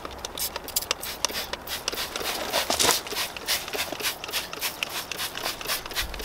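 Trigger spray bottle squirting leak detection fluid onto the refrigerant line-set flare fittings of a mini-split outdoor unit in a rapid series of short sprays, the leak check after the refrigerant has been released into the lines.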